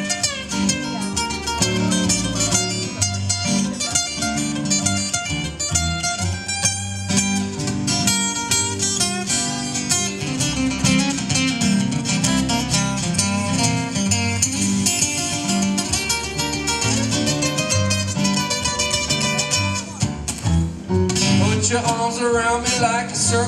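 Live acoustic band playing an instrumental break with no singing: two acoustic guitars and an electric keyboard.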